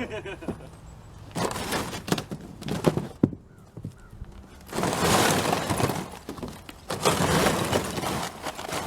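Ice a couple of inches thick being smashed and broken up in a canoe: a few sharp cracks and knocks, then two longer stretches of crunching, shattering ice.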